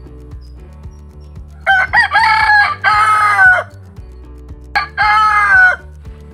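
A rooster crowing: a long two-part crow starting about two seconds in, then a shorter crow about five seconds in.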